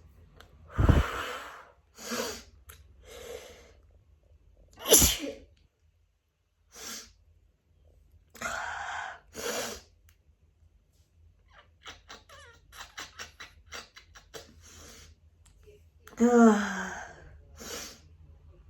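A person sneezing again and again in an allergy attack, with the loudest sneezes about a second in, around five seconds in, and near the end, and smaller sneezes between.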